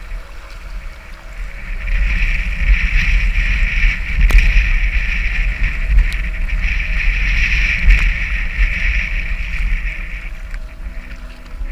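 Water rushing and splashing around a kayak's hull in a riffle of the Waimakariri River, with a low wind rumble on a GoPro Hero 4's microphone and a few paddle splashes. The water noise swells about two seconds in and eases off near the end.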